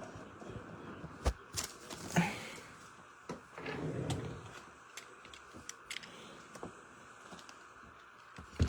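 Handling and opening a cardboard box of packaged trading cards: scattered light taps and clicks with brief rustles of cardboard and plastic wrap.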